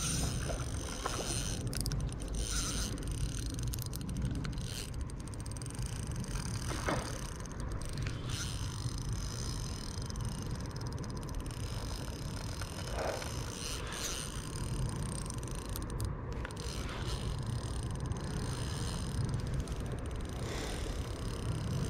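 Spinning reel being cranked to retrieve a lure, its gears whirring steadily over a low rumble.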